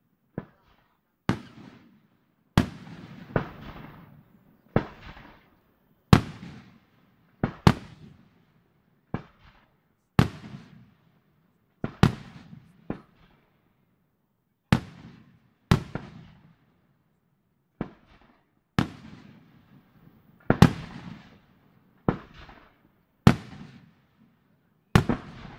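Aerial fireworks display: firework shells bang roughly once every second or so, about twenty in all, each sharp report trailing off in a fading rumbling echo.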